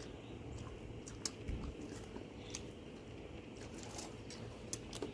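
A person eating and chewing chicken afritada, with a few small, sharp mouth clicks scattered through the chewing.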